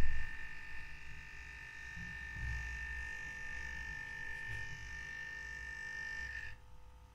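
Eheim air 100 diaphragm air pump running with a steady high buzz over a low hum, from the housing vibrating strongly on a hard stone countertop. A brief thump comes right at the start. About six and a half seconds in, the buzz stops suddenly as a finger presses down on the pump and damps the vibration.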